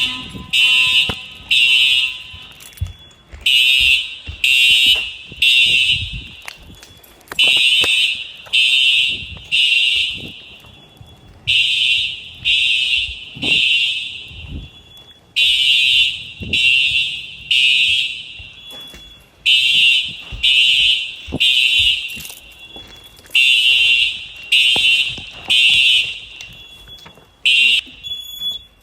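Fire alarm sounding on test, beeping in the temporal-three evacuation pattern: three high-pitched beeps, then a pause, repeating about every four seconds.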